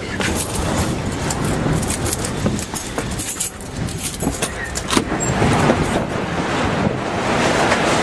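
Tornado winds rushing around a building, with rapid rattling and clicking in the first half; the rush grows louder from about five seconds in.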